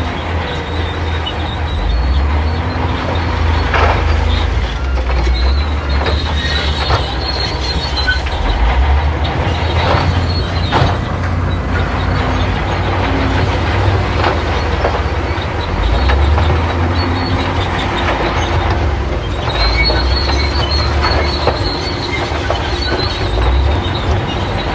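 Crawler bulldozer working: its diesel engine runs steadily under load while the steel tracks squeal and clank, the squealing coming in stretches.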